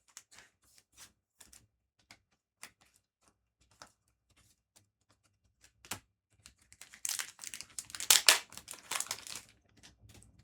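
Foil trading-card booster pack torn open and its wrapper crinkled, loudest for a couple of seconds about seven seconds in, after a run of light clicks and taps of cards being handled.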